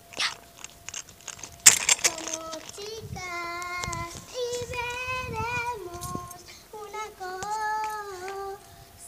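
A young girl singing, holding long wavering notes from about two seconds in until near the end. A few sharp clicks and taps come before she starts.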